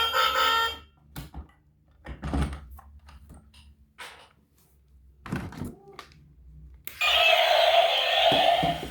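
Music cuts off, followed by a few scattered knocks and thunks, like handling of a toy or its box, spread over several quiet seconds. About seven seconds in, a loud, steady, buzzy sound starts abruptly.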